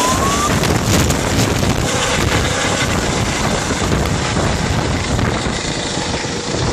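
Air ambulance helicopter's rotor and turbine noise as it climbs away overhead, easing off a little near the end, with wind buffeting the microphone.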